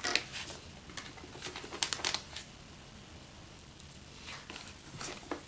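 Handling noise from a plastic DJI Phantom remote controller being turned over and a small amplifier module with its cables being picked up: faint scattered clicks, taps and rustles in a few short clusters, near the start, around the middle and near the end.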